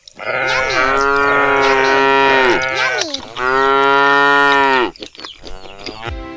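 A cow mooing twice in long, steady calls, the second one shorter.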